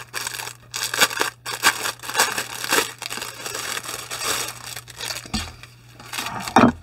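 Clear plastic wrapping and a folded vinyl beach ball crinkling and crackling as the ball is pulled out of its bag and opened out by hand, with a bump of handling near the end.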